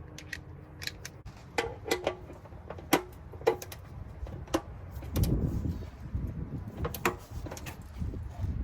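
Scattered metallic clicks and knocks of hand tools being handled, with a low scraping rumble about five seconds in as the oil drain pan is slid across the floor.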